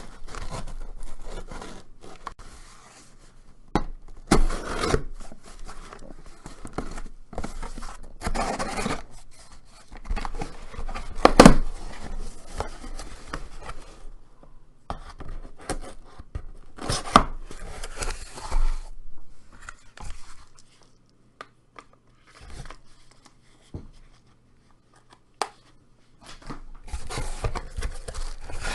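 Packaging of a marker set being opened by hand: irregular tearing, crinkling and scraping, with one louder burst about eleven seconds in and a quieter lull later on.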